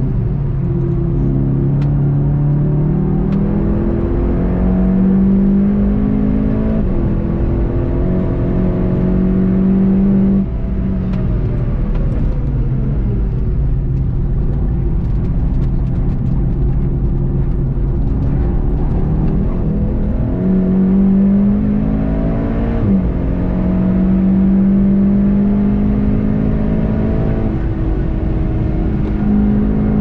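VW Golf 7.5 GTI TCR's turbocharged 2.0-litre four-cylinder engine under hard acceleration, rising in pitch and shifting up several times. About a third of the way in it falls in pitch as the car brakes for a slow corner, then it pulls through the gears again. Steady tyre and wind noise runs underneath.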